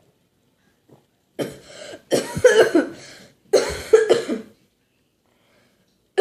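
A person coughing in three hard fits, the first about a second and a half in, with another cough starting right at the end.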